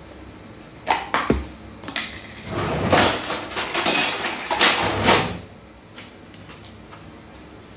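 Food preparation at a kitchen counter: two sharp knocks of a utensil or dish about a second in, then about three seconds of loud, uneven rustling and scraping as she works at the mixing bowl, stopping suddenly.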